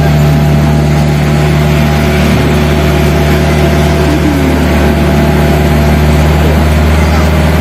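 Engine of a zoo mini train's tractor unit running steadily with a low hum while the train rolls along.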